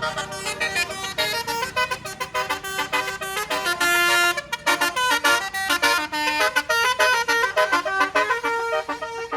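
A tour bus's Basuri telolet horn playing a fast tune of short stepped notes, with a couple of longer held notes partway through.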